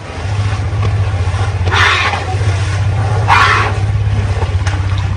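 Asian elephant rumbling: a steady, low, fluttering rumble that sets in right at the start and carries on. Two short hissing puffs of breath sound over it.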